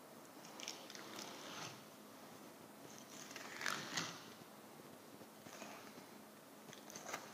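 Flexible fillet knife slicing a large halibut fillet away from the backbone: a few soft, wet cutting strokes. About halfway through come two sharper clicks.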